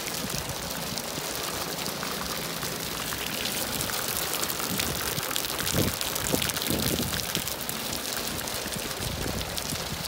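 Steady rain falling, a dense hiss of drops striking hard surfaces, with a few short low thumps about six seconds in.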